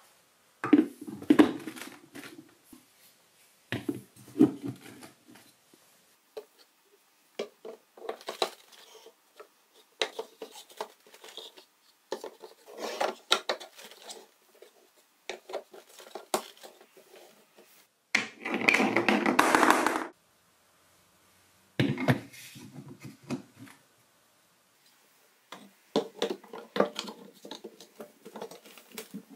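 Plastic and wooden marble-run pieces being handled and fitted together: scattered clicks, knocks and light rattles as track sections and stacking bricks are set in place, with a denser rattle lasting about two seconds a little past the middle.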